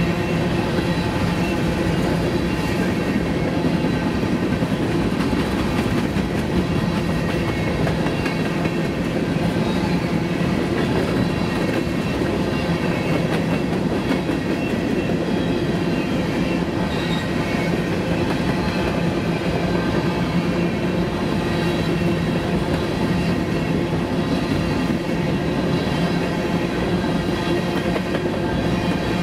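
Grain train's freight cars rolling past on the rails: a steady, unbroken rumble of wheels with a constant hum and some clickety-clack.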